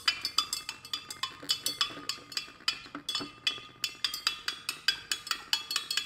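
A stirring rod clinking rapidly against the inside of a glass beaker as a liquid is stirred, several light glassy clinks a second, each ringing briefly.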